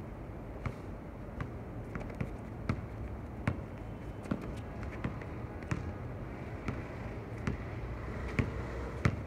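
Basketball being dribbled on an outdoor hard court, a sharp bounce about every three-quarters of a second, with one louder bounce near the end.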